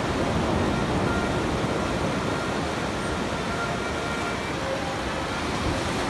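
Black Sea surf breaking on a beach: a steady rushing wash of waves.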